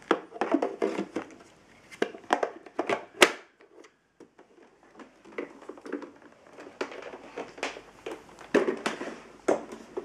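Plastic clicks, knocks and rattles from the filter cassette and body of a Lux Intelligence canister vacuum cleaner being handled with the motor off. The loudest knock comes about three seconds in, then there is a short pause before more clattering.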